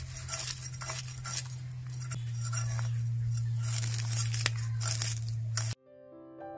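Fish scales being scraped off against a boti, a curved blade fixed upright on a wooden base: repeated short rasping strokes over a steady low hum. Near the end this cuts abruptly to soft electric piano music.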